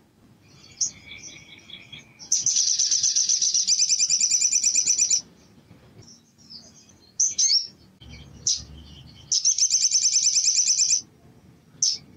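Male olive-backed sunbird singing: soft high chirps, then a loud, fast, even trill lasting about three seconds, a few sharp single calls, and a second trill of under two seconds near the end.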